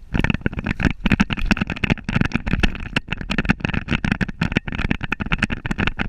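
Fast, irregular thuds and rustling from a border terrier running with a camera strapped to its back, the mount jolting with each stride.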